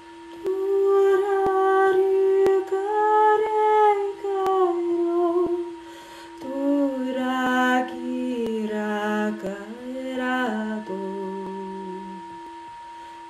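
A woman sings long wordless notes over the steady ring of a singing bowl: a higher phrase first, then a lower phrase starting about halfway through.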